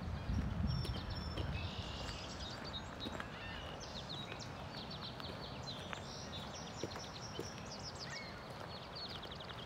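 Footsteps crunching on a gravel trail for the first second or so, then fading, while several small birds chirp and give quick trills throughout.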